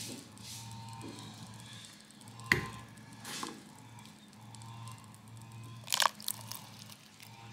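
Quicklime heating pouch of a self-heating hot pot reacting in water: faint fizzing and crackling, with a sharp crack about two and a half seconds in and a few quick clicks near six seconds.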